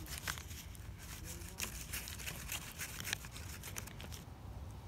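Fillet knife slicing down along a bullhead's backbone and ribs to free the fillet, heard as a run of small, irregular clicks and scrapes.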